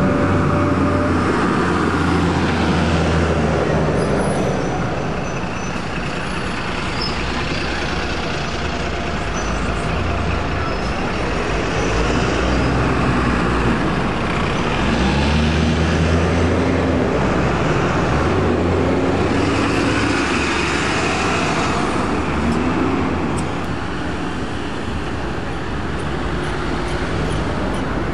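Diesel single-deck buses pulling away and passing in city traffic: engine note swelling and rising in pitch several times as they accelerate, over continuous traffic noise.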